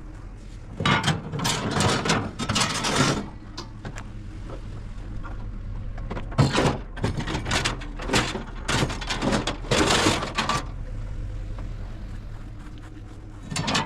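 Several bursts of scraping and rattling as discarded items are grabbed and moved, over the steady hum of an idling vehicle engine.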